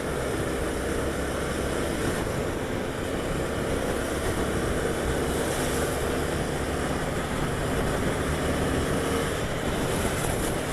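A Honda Twister motorcycle under way: wind rushing over the microphone over the steady note of its single-cylinder engine.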